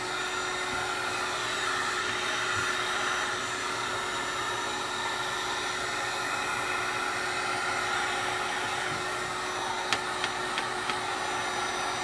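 Electric heat gun running steadily with a constant hum, blowing hot air to soften the adhesive holding a tablet's touch-screen digitizer to its plastic frame. A few light clicks near the end.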